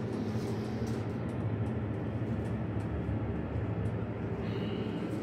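Montgomery hydraulic elevator car moving down: a steady low hum and rumble of the cab in motion. A faint high tone comes in near the end.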